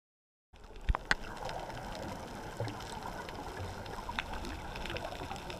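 Underwater sound picked up by a camera in its housing on a coral reef: a steady muffled hiss with scattered clicks and crackles, beginning suddenly about half a second in. Two sharp clicks about a second in are the loudest.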